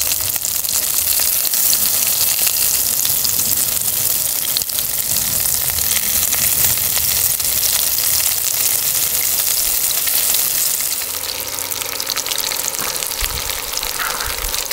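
Thin slices of beef rump sizzling hard in a hot pan, with a steady crackling hiss. The heat is high enough that the fat cooks off and the meat scorches. The hiss eases slightly in the last few seconds.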